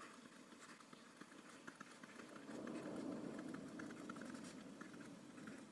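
Faint, quick ticks of a stylus tapping on a tablet screen as an equation is handwritten, with a faint low hum swelling in the middle.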